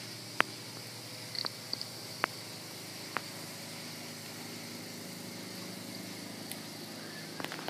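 Quiet room tone: a steady low hum with a few faint sharp clicks.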